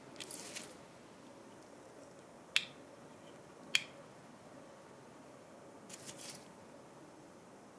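Two sharp clicks about a second apart, with faint scratchy rustling near the start and again near the end: a gloved hand handling the photodiodes on the amplifier board.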